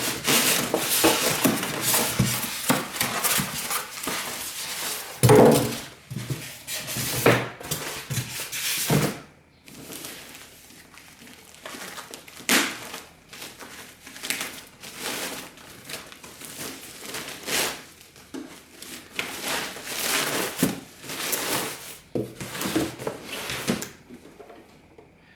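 Cardboard box and packing material rustling and scraping as an electronic unit is lifted out and unwrapped, dense for the first nine seconds or so, then scattered handling noises with short knocks and thumps.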